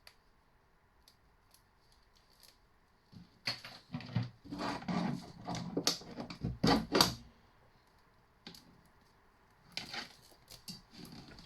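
Clicking and clattering of copper wire and tools being handled while stripping scrap wire. A dense run of knocks and clicks starts about three seconds in and lasts about four seconds, with a few softer clicks near the end.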